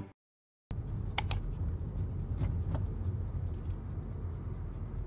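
Low, steady road and engine rumble heard from inside a moving car's cabin. Two sharp clicks come a little over a second in, and a few fainter clicks follow.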